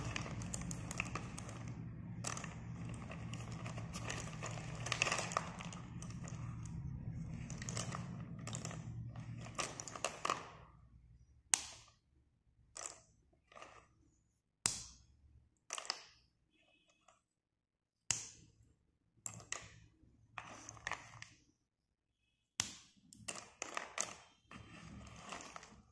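Slate pencil sticks clinking and rattling against each other as a hand stirs through a heap of them. For the first ten seconds the rattle runs on continuously over a low steady hum; after that come separate sharp clicks and short clatters with pauses between them.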